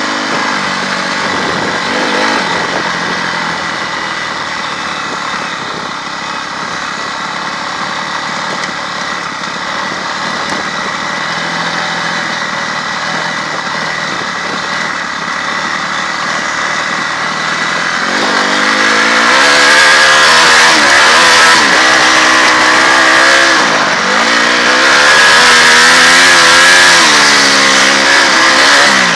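Honda CRF250R's single-cylinder four-stroke engine running under way on a dirt track, with wind noise. About eighteen seconds in it gets louder, the engine revving up and down.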